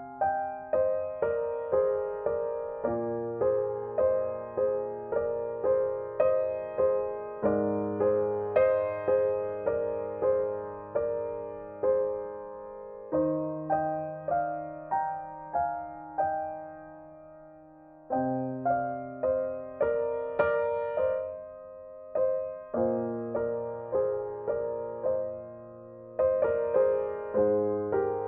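Background piano music: a gentle melody of struck notes that each fade away, about two a second, over held bass notes, with a brief lull about two-thirds of the way through.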